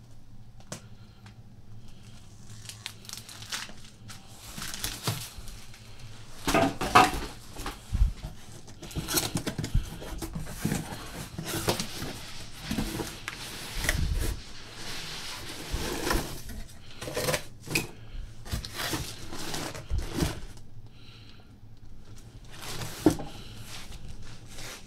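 Cardboard boxes and parts packaging being handled: irregular rustling, crinkling and scraping with a few knocks, busiest in the middle and quieter at the start and end.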